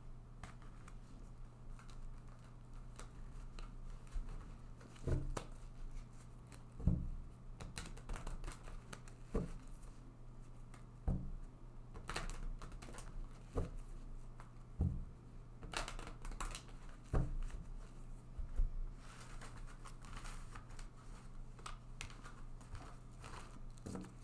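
Tarot cards being handled and shuffled by hand: irregular soft taps, knocks and short rustles of the cards, over a faint steady low hum.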